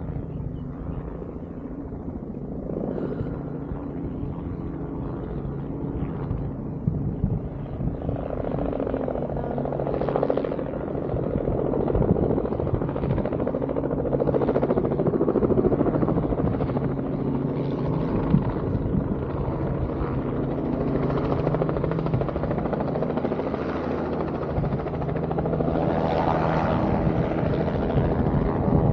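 A steady low engine drone with a constant hum, swelling and easing a few times.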